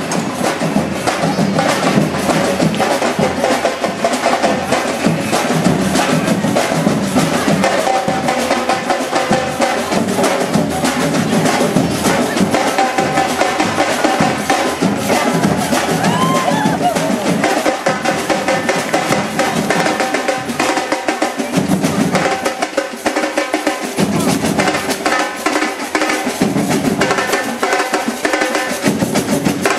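Marching percussion band drumming a steady rhythm on bass drums and snare drums.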